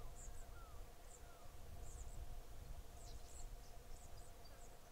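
Faint bush ambience: scattered short, high bird chirps and a couple of brief falling whistled notes early on, over a low wind rumble and a steady faint drone.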